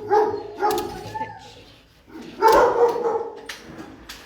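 Shelter dogs barking: two short barks at the start, then a longer run of barking about two and a half seconds in.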